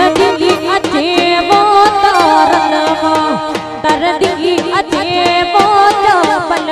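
A woman singing a folk song for dandiya raas into a microphone, amplified through a PA. Her melody bends and ornaments over a fast, steady percussion beat.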